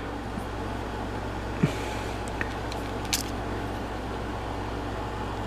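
A few faint plastic clicks and taps from an action figure being worked into place, over a steady low room hum.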